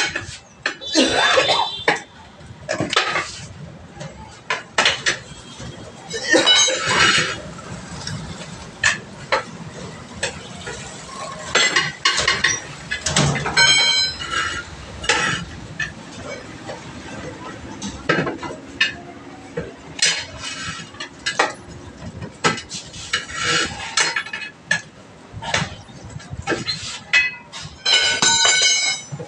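Steel tyre levers clanking and scraping against a steel wheel rim as a tyre is pried off by hand: irregular metallic clinks and knocks, a few of them ringing clangs, the loudest near the end.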